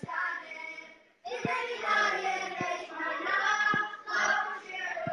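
Boys' choir singing together, breaking off briefly about a second in and coming back in full, with a low thump about once a second under the voices.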